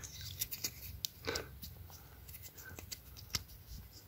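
Faint handling noise: scattered small scrapes and clicks as fingers turn a dug-up brass button, with a short rasp about a second in and one sharper click about three seconds in.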